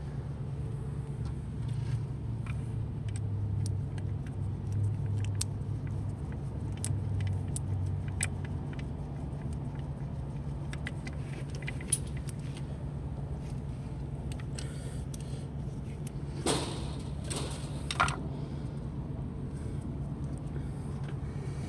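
Scattered small metallic clicks and clinks of hand work on a car's distributor, fitting a new rotor and cap, over a steady low hum. Two louder scraping bursts come near the end.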